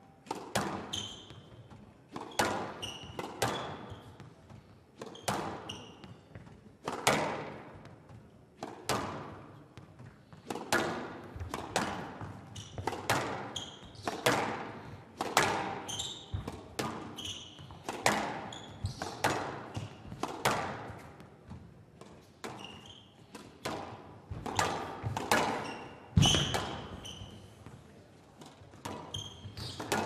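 Squash rally on a glass show court: the ball cracks off the rackets and the walls at a fast, irregular pace, each hit echoing in the hall, with short squeaks of shoes on the court floor and one heavier thump near the end.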